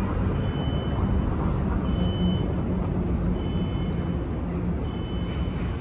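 City street traffic: a steady rumble of engines and passing vehicles, with a short high beep repeating about every second and a half.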